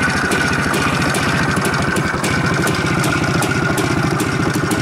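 IZH motorcycle's two-stroke engine idling steadily, a fast, even, loud putter.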